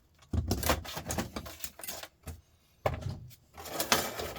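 Small metal scrap parts clicking and clattering as they are handled, in several short bursts with brief pauses between them.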